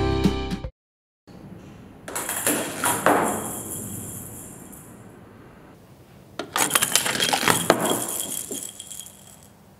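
A plastic ball rolling and clattering through a marble-run toy built from magnetic plastic tiles, with a ridged flexible plastic tube. It makes two runs of quick clicks and rattles, the second beginning about six and a half seconds in.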